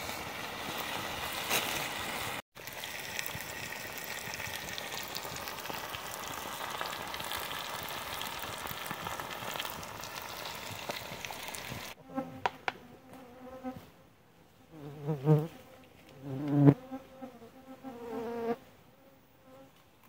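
Steady sizzle of a pan of chicken gizzards simmering over a small wood fire, then, after a cut, insects buzzing close by in several short passes.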